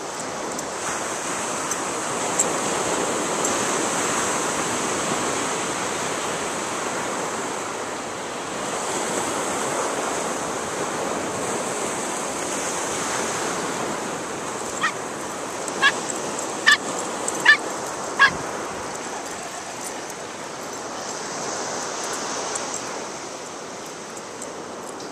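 Steady rush of surf, with a dog barking five quick times, a little under a second apart, about two-thirds of the way through.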